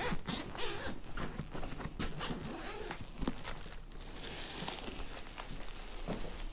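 Zipper of an insulated food-delivery bag being pulled open, then rustling of the bag and its foil-lined packaging. A run of short rasping strokes over the first few seconds gives way to quieter rustling.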